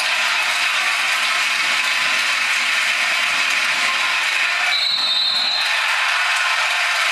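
Dense, steady din of a basketball crowd in a packed hall. A short high whistle tone sounds about five seconds in.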